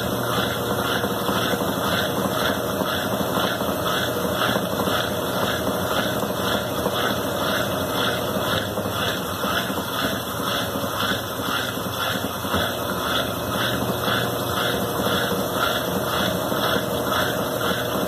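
Consul Maré Super 10 kg washing machine running through its cycle: a steady machine hum with a regular beat about two to three times a second.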